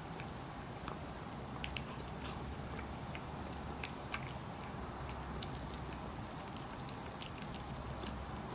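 Elderly cat eating crumbled tofu from a plate: irregular small wet clicks of licking and chewing, several a second.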